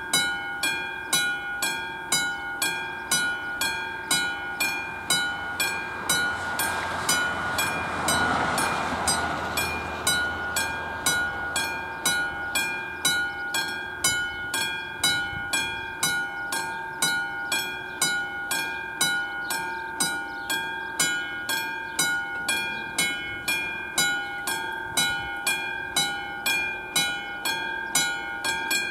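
Classic level-crossing bell on an AŽD 97 warning signal, ringing at about one and a half strokes a second. Each stroke gives a bright, ringing clang. It stops near the end, when the barriers are fully down. A rushing noise swells and fades about seven to ten seconds in.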